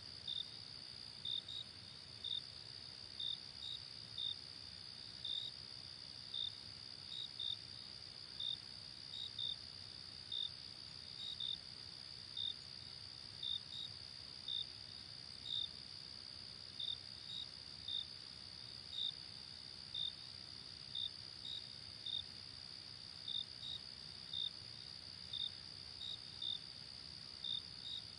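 Night-time insect chorus: a steady high-pitched drone of insects with a cricket chirping a little more than once a second, the chirps often coming in pairs.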